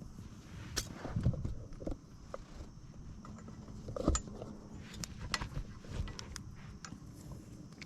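Scattered light clicks and knocks of metal parts being handled as a truck's gear shift lever is fitted back onto its shaft and its retaining nut started by hand.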